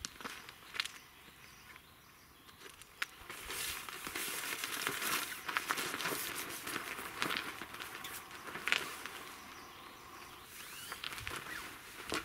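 Snow Peak Light Tarp 'Ponta' fabric rustling and crinkling as it is pulled and rearranged on a rope ridgeline, loudest in the middle of the stretch, with a few light footsteps on gravel.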